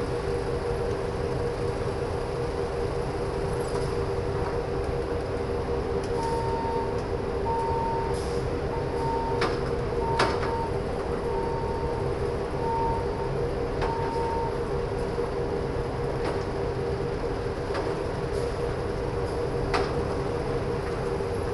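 Forklift reversing away from a loaded truck over a steady engine hum, its reversing beeper sounding seven times, about one beep every second and a quarter, starting about six seconds in. A few sharp clanks stand out, two close together in the middle and one near the end.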